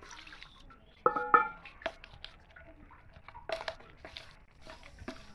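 A stainless steel tumbler mashing boiled potato, beans and tomato into eromba in a steel plate: wet squishing with many small metal clicks, and two ringing clinks of steel on steel about a second in.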